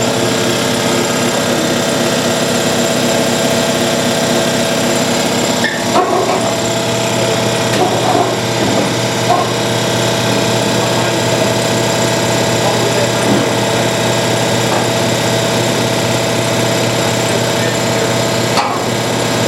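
A motor running steadily with a constant whine, with a few short metallic knocks, the first about six seconds in and another near the end.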